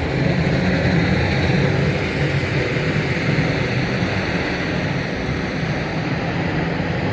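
Steady drone of a heavy engine running close by: a low hum with a rushing hiss over it, swelling at the start and then holding level.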